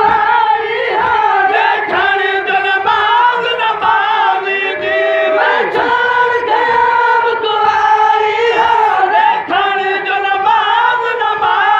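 A crowd of men chanting a mourning lament (noha) together in unison, loud and close, the voices holding long notes and sliding between them.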